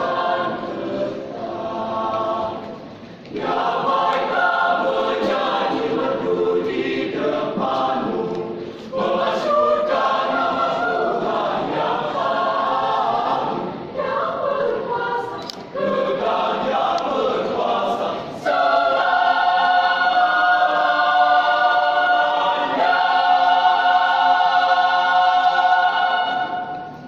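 Mixed youth choir singing a sacred choral piece in phrases, with short breaks between them. It ends on a long, loud held chord lasting about eight seconds, which cuts off shortly before the end.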